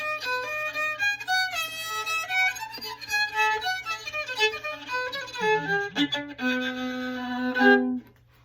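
Solo fiddle playing the closing phrases of a fiddle tune in G, quick changing notes that settle into a long held final note, which stops about eight seconds in.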